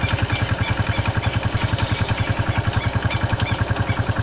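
Honda Pop 110i single-cylinder motorcycle engine idling cold, a steady beat of about nine pulses a second, with the strange mechanical noise it makes on a cold start, which the owner likens to a loose spring or bearing.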